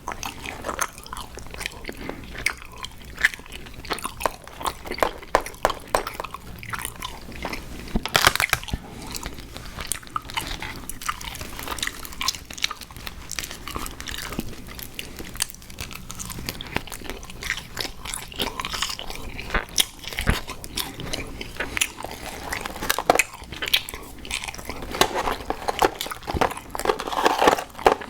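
Close-miked chewing and crunching of sour gummy worms cereal: a steady run of crisp bites, crunches and wet mouth sounds.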